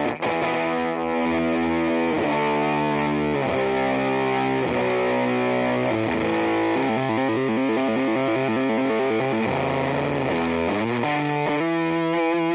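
Electric guitar played through a Sola Sound Pro MkII Tone Bender fuzz pedal with germanium OC74 transistors: thick fuzzed chords struck and let ring, changing about every second. The notes waver and bend through the middle, and a long chord is held near the end.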